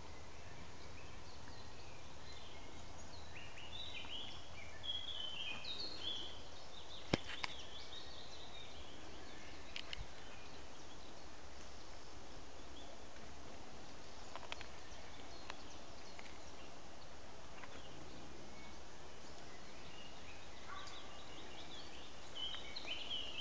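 Woodland birdsong: short, choppy chirping phrases from small birds, busiest in the first several seconds and again near the end, over a steady background hiss. There are a couple of sharp clicks about seven seconds in.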